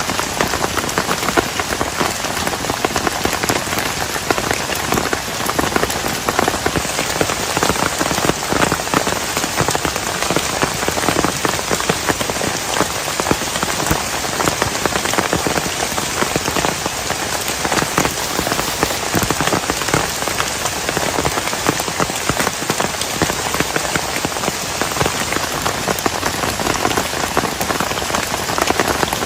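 Heavy rain falling steadily, a dense spatter of countless drops striking a surface.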